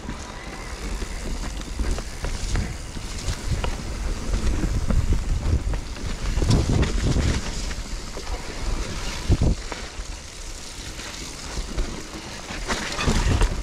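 Mountain bike riding down a wet dirt singletrack. Wind buffets the bike-mounted microphone over a steady low rumble of tyres on the trail, with scattered knocks and rattles as the bike goes over bumps.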